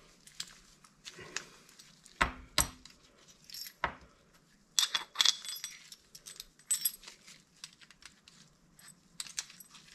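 Intermittent metallic clinks and clicks, with a few sharper knocks about two to four seconds in and brief ringing chinks around the middle: steel washers, a spanner and the pin and fittings of a classic Mini top suspension arm being handled and fitted at a bench vise.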